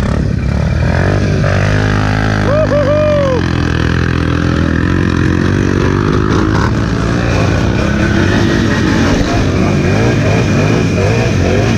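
ATV engine running under load through mud, its pitch rising and falling with the throttle.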